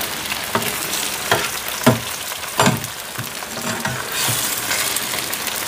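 Sliced potatoes sizzling in a large frying pan as they are stirred with a metal slotted spatula, which scrapes and knocks against the pan about four times in the first three seconds.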